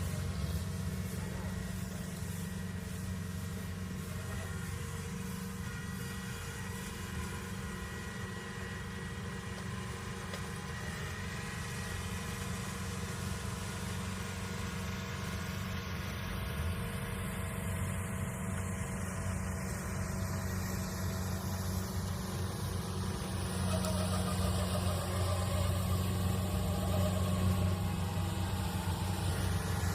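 Kubota DC70 Plus combine harvester's diesel engine running steadily, growing a little louder over the last ten seconds.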